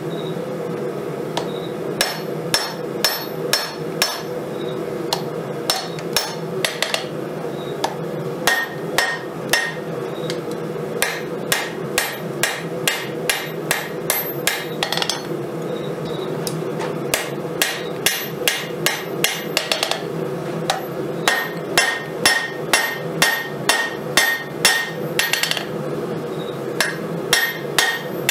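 Hammer blows forging 5160 steel on an anvil: runs of sharp strikes, two or three a second, some with a bright metallic ring, with a short pause midway. A steady hum runs underneath.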